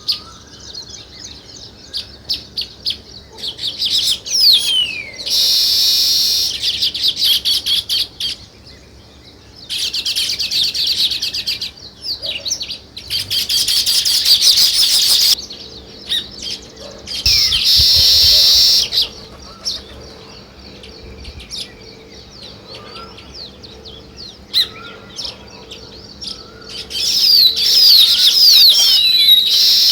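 Sparrows chirping: loud stretches of dense chattering that last a second or three each, with scattered single chirps between them.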